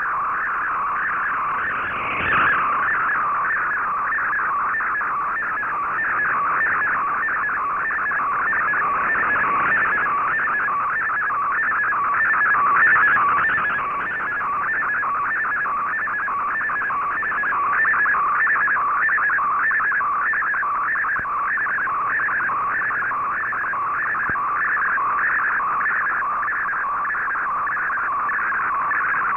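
Shortwave data signal of an MFSK64 picture transmission, received on an Icom IC-R8600: a warbling tone between about 1 and 2 kHz that pulses in a steady, regular rhythm while a colour image is decoded line by line.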